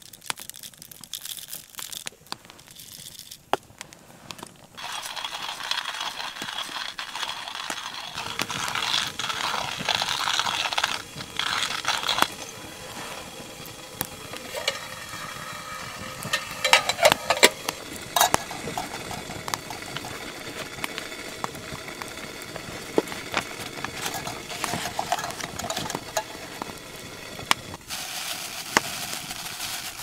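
A hand coffee grinder being cranked, grinding beans, then a wood fire crackling under a metal camp kettle, with a burst of sharp metal clinks partway through.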